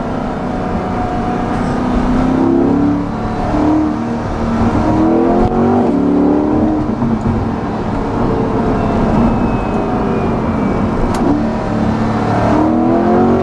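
2020 Chevrolet Corvette Stingray's mid-mounted 6.2-litre V8 accelerating hard, its note rising several times as it revs up out of the bends, heard from inside the cabin.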